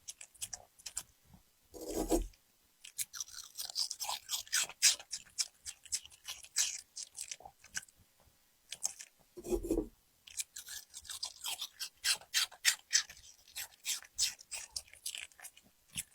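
A puppy chewing and crunching food: rapid, sharp crunches that come in uneven clusters. Two deeper, duller sounds break in, one about two seconds in and one near the middle.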